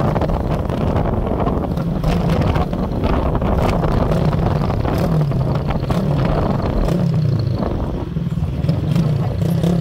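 Engine of the camera vehicle running steadily as it drives along the highway, its pitch wavering slightly, with a dense rush of road and wind noise.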